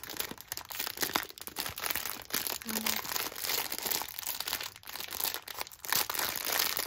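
Clear plastic packaging crinkling and rustling in the hands as it is pulled off a new bag strap, with many sharp crackles throughout.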